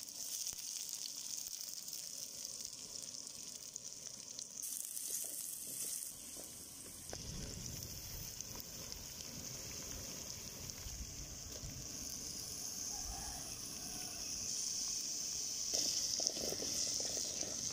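Sliced onions frying in hot oil in a metal kadai: a steady sizzle, with a wooden spatula stirring and scraping now and then. The sizzle grows louder near the end.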